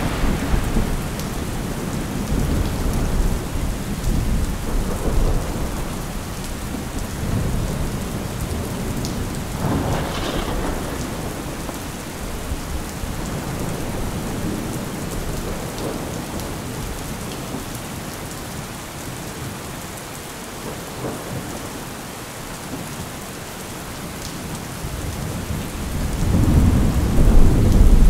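Steady rain with rolling thunder. A low rumble of thunder is heard at the start and swells again near the end.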